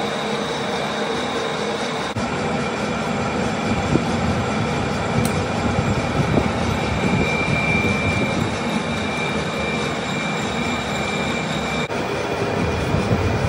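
Manual metal lathe running: a steady mechanical din with thin high whining tones over it.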